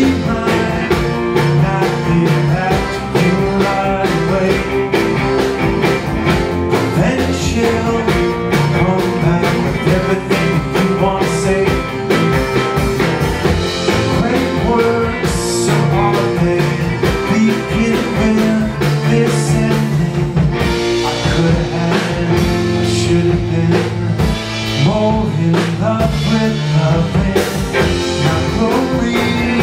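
Live band playing a mid-tempo rock song: electric guitar, bass guitar, cello and accordion over a steady drum beat.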